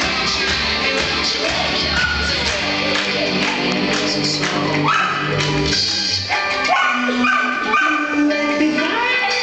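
Recorded music playing, with a dog barking a few short times over it in the second half.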